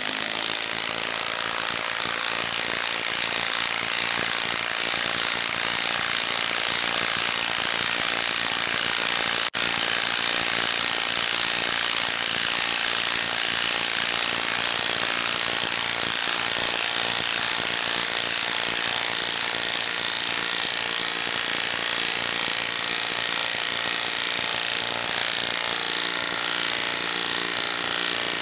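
Milwaukee M18 stubby 1/2-inch cordless impact wrench hammering steadily as it drives a 6-inch lag screw down into a log round, with one split-second break about nine and a half seconds in.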